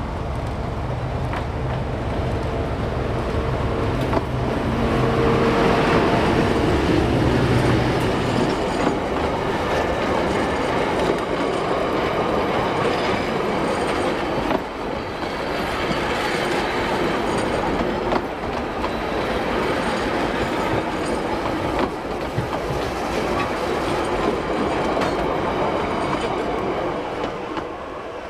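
English Electric Di-class diesel-electric locomotive passing with its engine note, loudest about six seconds in. The carriages then roll by with a steady rumble and clicks of wheels over the rail joints, dropping away near the end.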